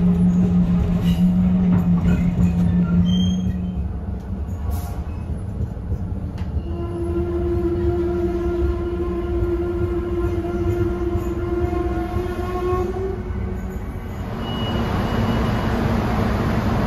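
Diesel railbus heard from inside its passenger cabin, the engine and running gear humming steadily as it stands at or draws into the platform. About fourteen seconds in, the sound changes to a broader, steady rushing noise.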